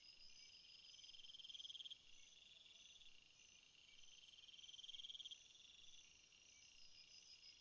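Faint chorus of trilling insects, several high-pitched pulsed calls overlapping; a louder trill swells and breaks off twice.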